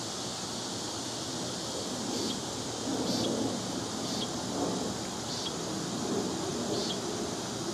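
Steady outdoor background hiss with an uneven low murmur, and a short, high, downward chirp repeating five times, about a second or so apart.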